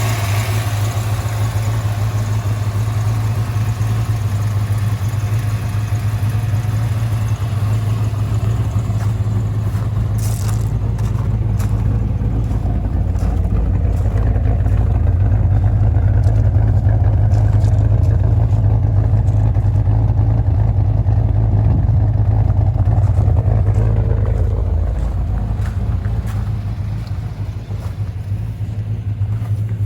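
Chevrolet LT1 355 V8 with an LT4 hot cam running through its exhaust, most of whose leaks are now repaired: a steady deep rumble that grows louder around the middle and eases off near the end.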